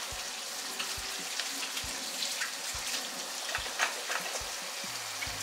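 Pot of pasta water at a rolling boil, with chicken sizzling as it fries in a pan alongside. Soft low thuds come about once a second under the hiss.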